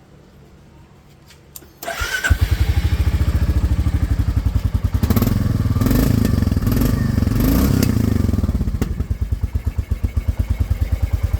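New-model Royal Enfield Classic 350's single-cylinder engine started about two seconds in, catching and idling with an even thump. It is revved in the middle, then settles back to a slower idle.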